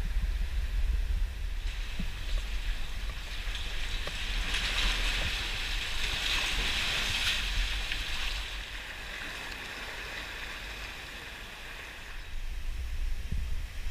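Sea water rushing and splashing, swelling to its loudest in the middle few seconds and then dying down, over a steady low rumble.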